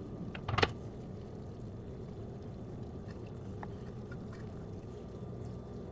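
A sharp clink about half a second in, then water running or pouring steadily with a few faint ticks.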